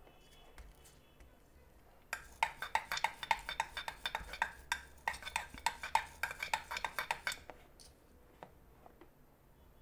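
A Mechanic soldering tip scrubbed back and forth in the brass wire cleaning wool of a soldering iron stand: a fast run of scratchy metallic clicks, several a second, starting about two seconds in and stopping about two seconds before the end. The tip is blackened with oxide and still will not take solder.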